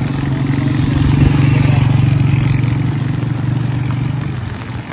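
Motorcycle engine passing close by on a wet road, loudest about a second in and fading as it moves away.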